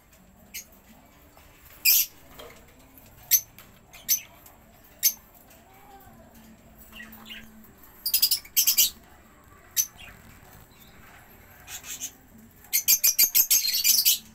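Budgerigars giving short, sharp, high-pitched chirps: single calls a second or so apart, a quick cluster of calls a little past the middle, and a fast string of chirps near the end.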